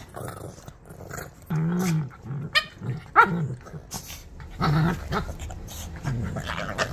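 Two small Shih Tzu–type puppies play-fighting: repeated low play growls, with two sharp high yelps about two and a half and three seconds in.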